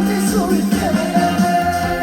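Live trot song played by a band over a PA: a steady beat under a held melody note that wavers, starting about a second in.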